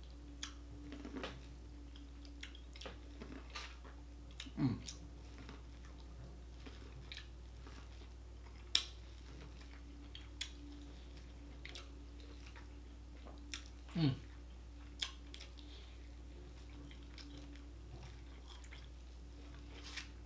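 Close mouth sounds of a man eating sweet corn on the cob: scattered bites, chewing and wet lip smacks, with a few louder ones spread through.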